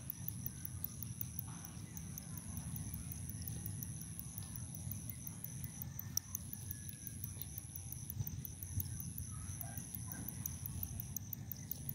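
Goats grazing, with faint tearing and munching of grass, over a low rumble and a steady high-pitched whine with fast regular ticking.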